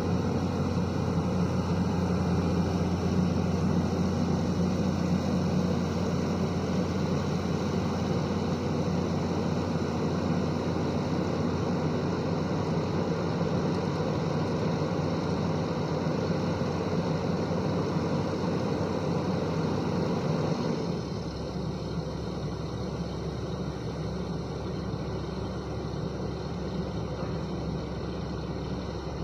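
Excavator's diesel engine running steadily. About two-thirds of the way through it drops to a lower, quieter note.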